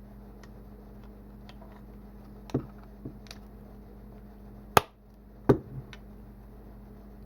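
Pliers clicking and knocking against the end cap of an e-hookah as it is worked loose: a few scattered small clicks, with two sharp knocks a little after the middle the loudest, over a faint steady hum.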